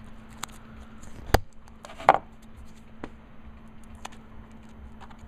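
Scattered clicks and rustles of a strip of electrical tape being handled and pressed onto a small circuit board, with a sharp knock a little over a second in and a louder rustle about two seconds in.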